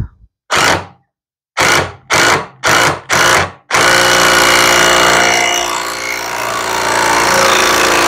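Cordless impact driver with a socket bit, turning a bolt to set a rivet nut (rivnut) in a steel plate. It gives five short trigger bursts, then from about four seconds in runs on continuously for about five seconds as the bolt draws up and crushes the back of the rivnut against the plate.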